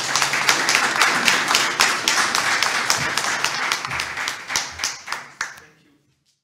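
Audience applauding, many overlapping hand claps that thin out and fade, then stop about six seconds in.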